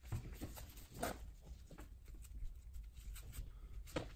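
Scratchy rustling and brushing of woven titanium lava-fibre exhaust heat wrap being wound by gloved hands around a header pipe held in a vise, with sharper scrapes about one second in and near the end.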